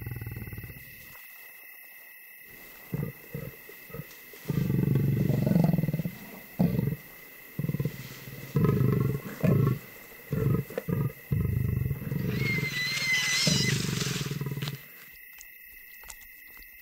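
Leopard and spotted hyena growling at each other over a kill: a string of short, deep growls starting about three seconds in, with a higher wavering cry shortly before they stop near the end.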